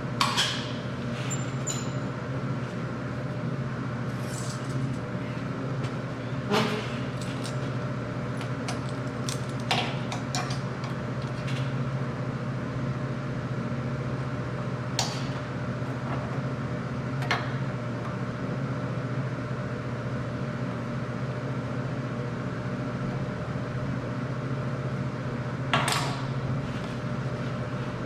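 Steady low electrical hum of shop equipment, with scattered short clinks and taps of metal parts and tools being handled, the loudest near the start and near the end.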